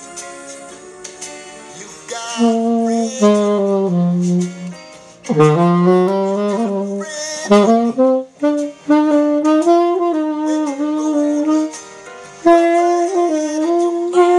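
Saxophone playing a slow jazz melody of long held notes with slides between them, coming in loud about two seconds in over quieter music.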